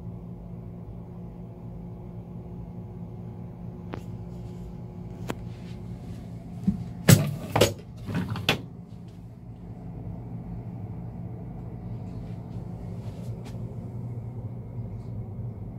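Steady low mechanical hum with a couple of light clicks, then a burst of loud knocks and clatter about seven to eight and a half seconds in, like a door or cupboard being handled.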